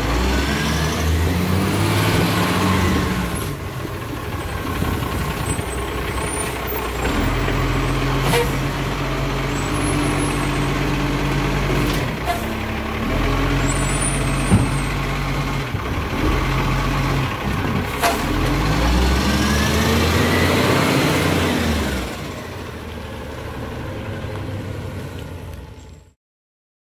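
Iveco side-loader garbage truck's diesel engine running and revving up and down as its automated arm lifts and empties bins, with the chugging sound of the bin pick-up and a few sharp knocks. Near the end the engine drops to a quieter steady run, then the sound cuts off suddenly.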